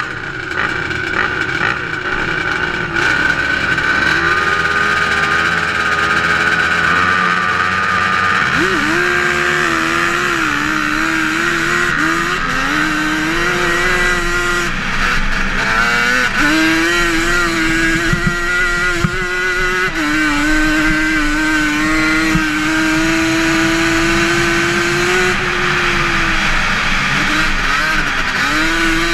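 Yamaha Banshee's twin-cylinder two-stroke ATV engine racing flat out on a dirt oval. Its pitch climbs, drops sharply and climbs again several times as it shifts up through the gears and backs off for the turn.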